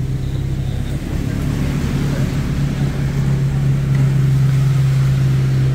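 Honda Brio's 1.2-litre four-cylinder engine running steadily through a newly fitted aftermarket downpipe, front pipe and resonator, a deep hum that grows slightly louder toward the end.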